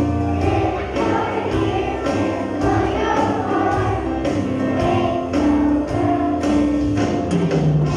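A group of young children singing a song together over accompanying music, heard from the audience in a large hall.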